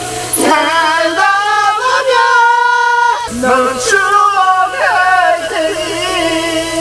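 A man singing a Korean song into a handheld karaoke microphone. He holds long, high notes with a wavering pitch and slides between them.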